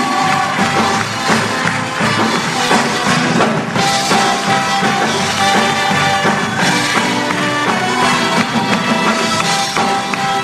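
A band playing instrumental music with drums beating steadily: the opening music of a live concert.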